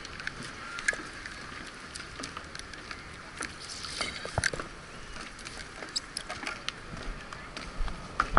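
Spinning fishing reel being cranked, a steady whir with scattered light clicks and ticks.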